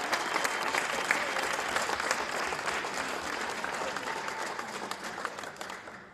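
Crowd applauding, the clapping gradually dying away and stopping about six seconds in.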